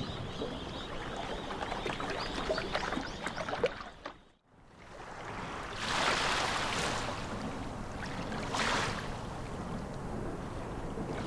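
Outdoor ambience with wind buffeting the microphone. It drops out briefly about four seconds in at an edit cut, then returns with gusts that swell twice.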